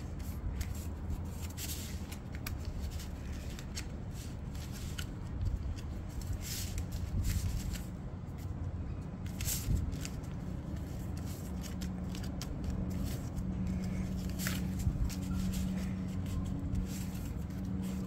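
A sheet of paper being handled and folded, with scattered crinkles and creasing rustles at irregular moments over a steady low hum.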